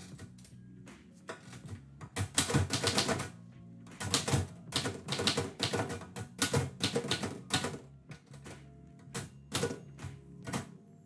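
Typewriter keys being struck in quick runs of clacks, in three bursts with short pauses between, over quiet background music.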